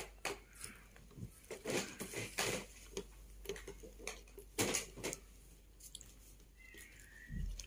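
Scattered light taps and rustling of hands handling tissue paper and small tortoises on a wooden board.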